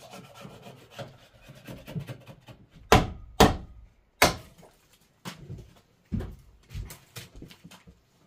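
Hammer knocking and scraping at a weathered log wall, chipping away rotten wood. Sharp blows are mixed with rubbing and scraping, the loudest strikes coming about three to four seconds in and again a little after six seconds.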